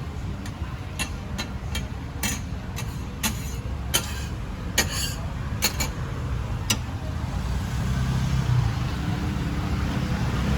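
Metal cooking utensils clinking and tapping at a frying stall, about nine sharp strikes spread over the first seven seconds, some ringing briefly, over a steady low rumble.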